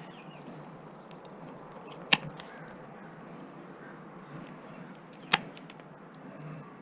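Two sharp clicks about three seconds apart, from hand tools working on the small motor of a juicer being stripped for its copper windings.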